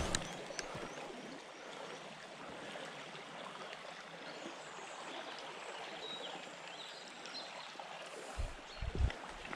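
Steady rush of river water flowing over a small drop in the riverbed. A few low thumps come near the end.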